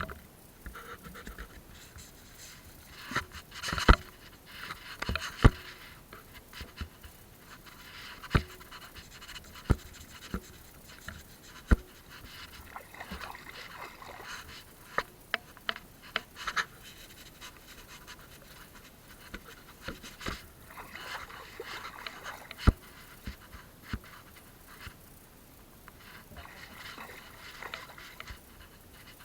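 Scattered sharp knocks, about a dozen at irregular intervals, between spells of water splashing and rustling, as of work with a net from a small boat or raft.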